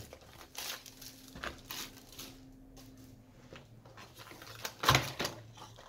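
Plastic shrink wrap crinkling and tearing as it is pulled off a cardboard booster box, with a sharp knock about five seconds in as the box is handled.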